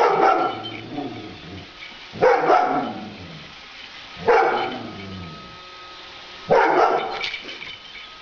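Dog barking: four single barks about two seconds apart, with a faint steady whine underneath.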